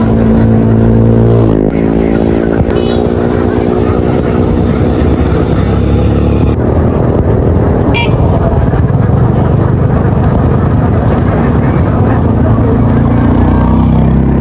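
A motor engine running loud and steady close by, with a humming pitch that shifts slightly in the first couple of seconds.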